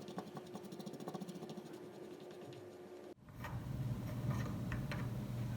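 Faint, fast, even ticking over a steady hum, which breaks off abruptly about three seconds in and gives way to a louder, steady low hum.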